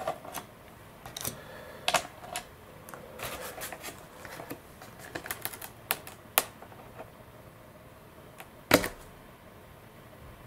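Handling noise as a carbon-fibre glider wing is worked off its fuselage and a paper sheet is peeled away from the joint: scattered light clicks and taps with soft paper rustling, and one sharper knock near the end.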